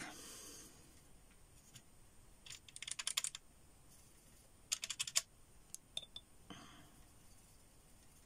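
Watercolour brush working green paint in a palette mixing well, the bristles and handle rubbing and tapping the palette: two short runs of quick faint clicks, a few single ticks and a brief soft scrape.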